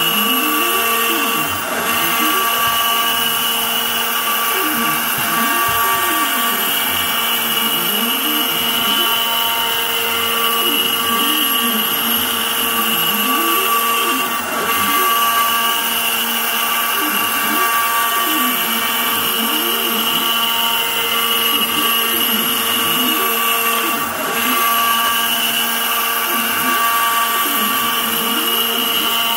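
An Inventables CNC router is carving a bottle-opener outline into a wood board. The spindle gives a steady high whine. Under it, a lower motor pitch glides up and down over and over as the stepper motors speed and slow the gantry along the curves.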